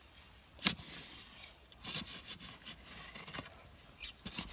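A short-handled digging spade striking and scraping into dry, stony soil, in irregular strokes with one sharp strike about a second in.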